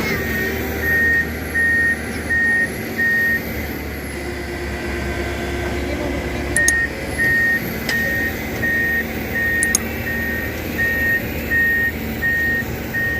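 A heavy vehicle's reversing alarm beeping at a steady, even pace, one pitch, over the low hum of its running engine; the beeping pauses for about three seconds early on, then starts again.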